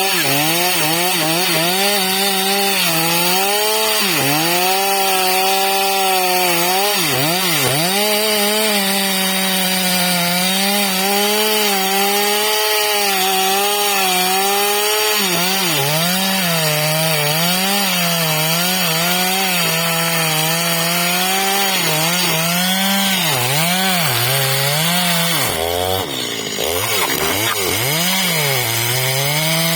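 Stihl MS250 two-stroke chainsaw cutting through wood. The engine's pitch sags and recovers again and again as the chain bites and frees, with a deeper dip about 26 seconds in.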